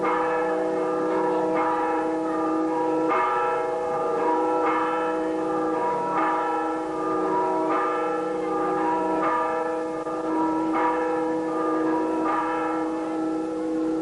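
Church bells ringing, with a new stroke about every one and a half seconds over the long hum of the earlier strokes.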